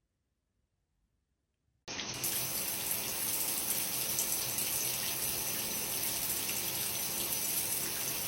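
Near silence, then about two seconds in a steady rush of running water, like a tap running into a sink, starts suddenly and keeps going.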